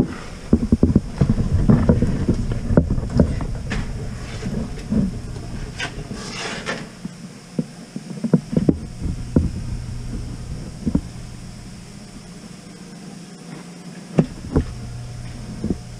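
Irregular knocks and clunks, packed close together in the first few seconds and then scattered, over a steady low hum.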